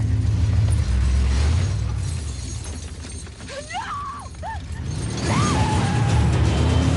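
Film trailer soundtrack: a deep rumbling music bed laid with sound effects. It dips quieter in the middle, where a few short gliding squeals sound, then swells again about five seconds in.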